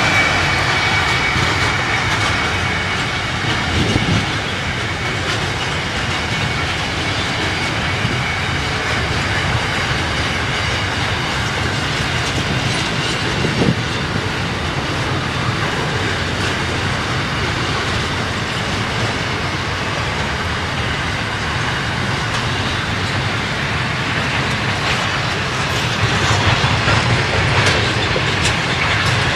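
Container freight train wagons rolling past, their steel wheels clicking steadily over the rail joints. The hauling NR class diesel locomotives' engine note fades in the first few seconds as they draw away.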